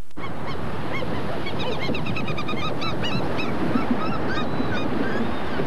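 Steady rush of surf breaking on a beach, with many short, repeated bird calls over it that grow busier partway through.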